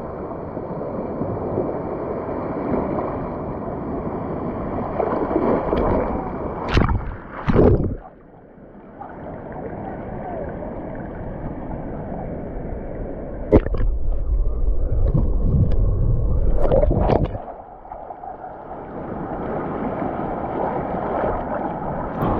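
Ocean surf washing in and running back out around the microphone, a steady rushing of water. It swells and eases, with a few sudden louder splashes, the biggest about seven seconds in and between about 13 and 17 seconds.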